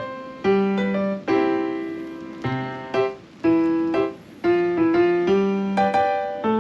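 Background piano music: gentle chords and single notes struck at a steady, unhurried pace, each ringing and fading.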